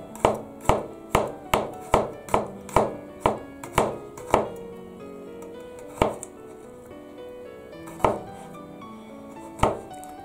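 Kitchen knife chopping garlic cloves on a cutting board. A run of quick chops, a little over two a second, lasts about four seconds, then three single chops come about two seconds apart.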